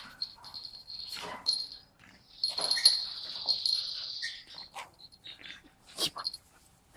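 Small long-haired dog playing with a toy on a tile floor: long high-pitched squeals in two stretches, with a few short knocks and clicks in between.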